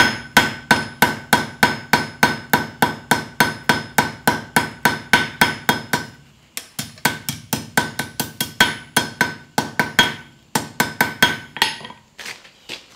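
Cross-peen hand hammer striking a red-hot quarter-inch steel rod on an anvil, about three to four blows a second, each with a ringing note, texturing the rod's surface. The blows pause briefly about six seconds in, resume, and stop near the end.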